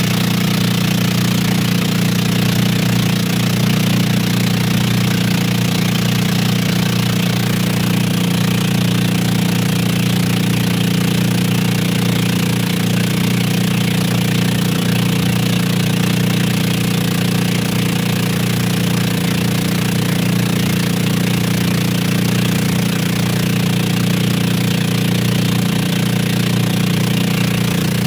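Engine of a motorized outrigger boat (bangka) running steadily and without change, a loud low drone.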